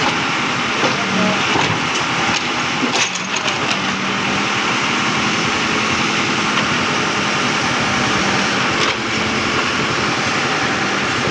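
Backhoe engine running steadily during excavation, with a couple of brief knocks about three seconds in and again near nine seconds.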